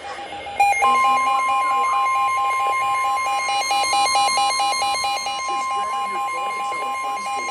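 Electronic emergency alert tone: a steady high tone over a rapidly pulsing lower beep, about five beeps a second. It starts about half a second in, and the beeping stops near the end while the steady tone holds.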